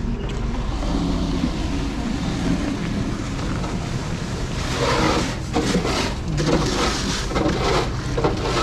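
Wind buffeting the microphone over a steady low rumble of city street traffic, turning more gusty and uneven about halfway through.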